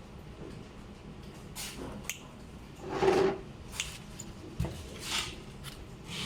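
Hands handling and working on a small electronics box: scattered clicks, a low knock and rustling scrapes, the loudest a half-second rustle about three seconds in.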